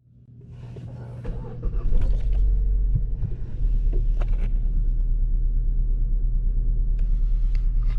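2016 Kia Forte's four-cylinder engine idling rough with a cylinder 4 misfire (code P0304), a low rumble with a regular uneven pulse. It fades in over the first two seconds.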